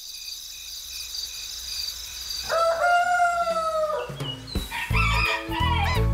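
A rooster crows once, one long held call starting about two and a half seconds in, over a high steady shimmering chime, as night turns to morning. About four and a half seconds in, a bright children's music jingle with a strong bass begins, with short rising and falling whistles.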